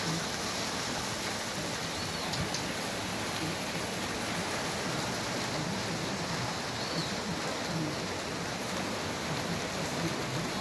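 Steady rain falling, an even unbroken rushing hiss.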